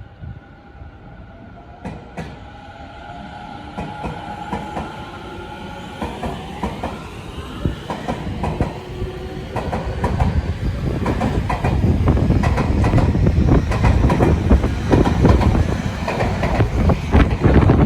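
Tobu line electric train passing close by: a whine from the train rises in pitch, then the cars go by louder and louder with wheels clattering over the rail joints and a heavy rumble.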